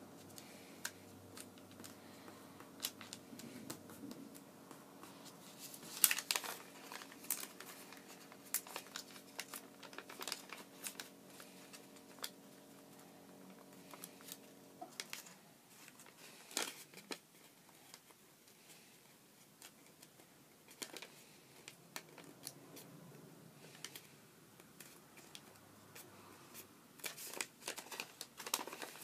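Origami paper rustling and crinkling as it is folded and creased by hand, with scattered sharper paper crackles, the loudest about six seconds in, around seventeen seconds and near the end.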